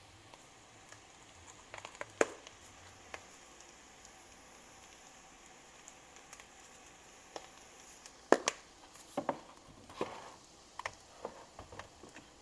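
Scattered light clicks and taps over a faint steady hiss, with one sharp click about two seconds in and a cluster of them from about eight seconds on.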